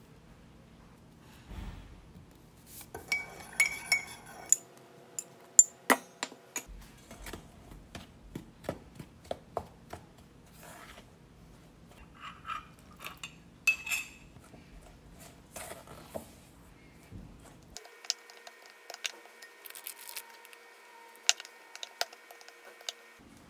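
A white spatula scraping and tapping against a stainless steel mixing bowl as flour is stirred into dough, with many irregular sharp clinks.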